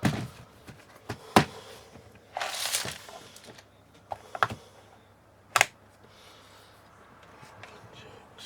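Rummaging through drawers and boxes of small electronic parts: a handful of sharp clacks and knocks, with a brief rustling scrape about two and a half seconds in.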